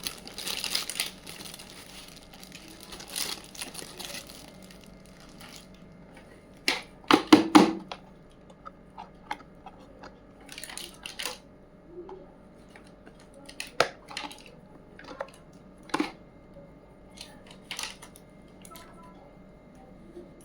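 Small plastic toy pieces and packaging being handled: crinkling for the first few seconds, a quick cluster of loud clacks about seven seconds in, then scattered light clicks and taps.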